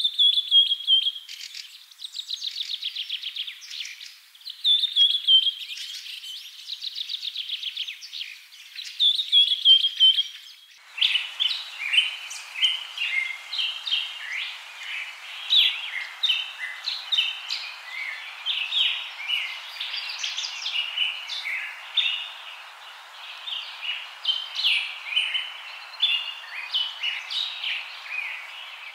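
Birdsong. First a bird sings a trilled phrase about two seconds long that falls in pitch, four times. Then, about eleven seconds in, it changes abruptly to a busy chorus of many birds chirping over a faint steady hiss.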